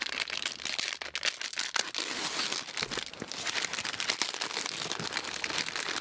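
Plastic wrapping of a French military ration pack crinkling and rustling as it is unpacked by hand, a dense run of small crackles throughout.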